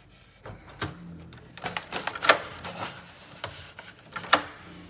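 Handling at a door: a paper takeaway bag rustling as it is taken off a metal lever door handle, with several sharp clicks and knocks from the handle and door. The loudest click comes about halfway through, another near the end.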